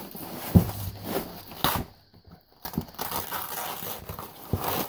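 Sealed foil-and-paper moisture-proof wrapping being ripped open and crinkled by hand: irregular tearing and rustling, with a sharp knock about half a second in and a brief pause near the middle.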